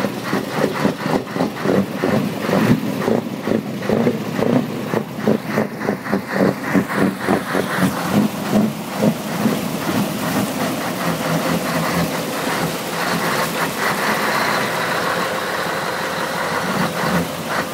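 V8 engine with side-exit exhaust pipes idling, its exhaust pulsing rhythmically a few times a second, then settling into a steadier, smoother note about halfway through.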